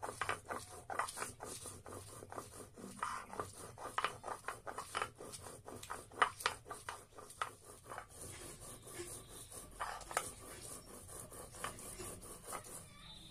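Stone roller (batta) grinding dried red chillies on a flat grinding stone (sil): a quick run of rasping back-and-forth strokes as the chillies are crushed into paste, the strokes growing sparser in the last few seconds.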